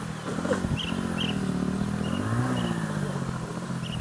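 A motor vehicle's engine running close by, its pitch rising and then falling about halfway through as it revs or passes. Short repeated bird chirps sound above it.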